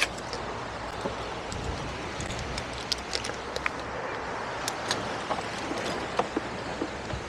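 Light clicks and taps of a rider handling gear and controls at a scooter's handlebars, scattered irregularly over a steady low background rumble.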